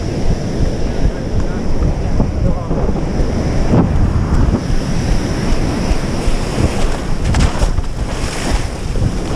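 Waves breaking on a beach, with heavy wind buffeting the microphone. Near the end there is splashing as the surfer wades into the whitewater.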